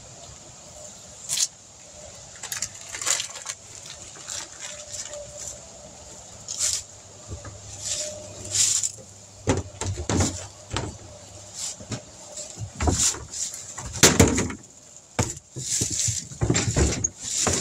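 Newspaper masking paper being pulled off and crumpled up: irregular rustling and crackling, sparse at first and heavier with some dull thumps in the second half.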